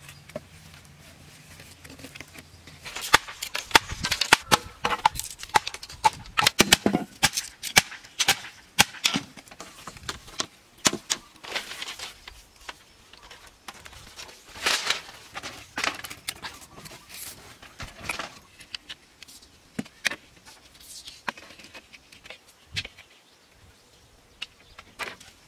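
Bamboo and wooden sticks knocking and clattering against each other as they are handled and fitted into a frame. The sharp, irregular knocks start a couple of seconds in, come thickly through the middle and thin out towards the end.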